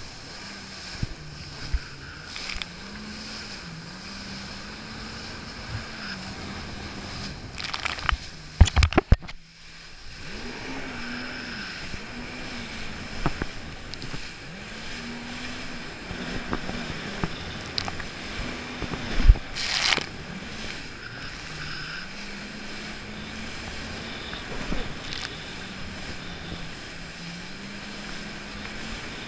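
Jet ski engine running, its pitch rising and falling with the throttle, over water spray and wind on the microphone. About nine seconds in comes a cluster of loud knocks and a moment's dropout, and there is another loud knock near twenty seconds.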